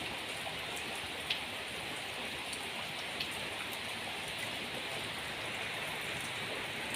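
Steady rain falling, with a couple of single louder drop-like ticks about a second in and about three seconds in.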